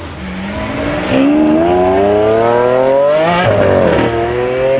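The single-turbo BMW M3 G81 Touring's S58 inline-six accelerating hard at full throttle. The revs climb steadily and get much louder about a second in, drop sharply at an upshift a little past three seconds, then climb again in the next gear.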